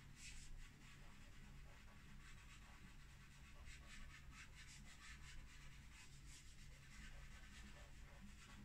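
Chalk pastel worked over a canvas: a run of faint, quick scratchy strokes, over a steady low hum.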